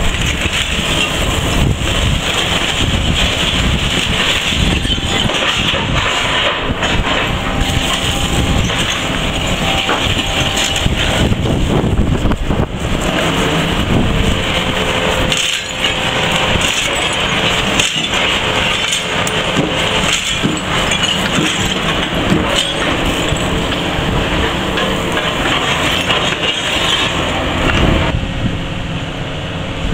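Demolition excavator working a rubble pile with its grab: engine running under load, with continuous crunching and clattering of broken debris.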